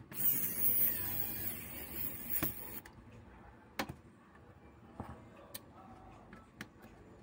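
A hand tool working on a graphics card's aluminium heatsink makes a whirring, grinding noise for about three seconds, then stops. A few sharp clicks and light taps of tools on the metal follow.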